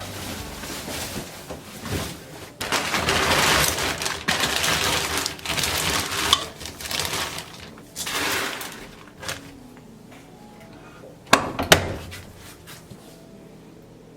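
Household handling noise: several seconds of rushing, scraping noise in uneven stretches, then two sharp clinks in quick succession, like dishes or glass being set down.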